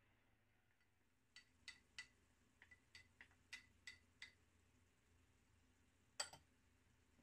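Wooden spoon tapping a small glass bowl about ten times, roughly three light clinks a second, knocking turmeric out into the pan. A single louder clink comes near the end.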